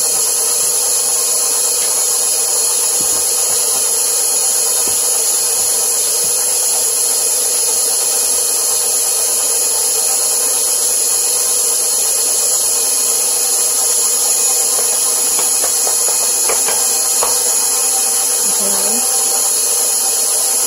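Electric stand mixer running steadily, its dough hook turning through wet yeast bread batter as flour is worked in; an even motor hum and whine with no change in speed.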